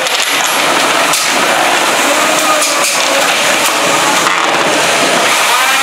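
3 lb combat robots fighting in an enclosed arena: a steady mechanical din of electric drive motors and spinning weapons, with a few sharp knocks of robots striking each other about a second in and again near three seconds in.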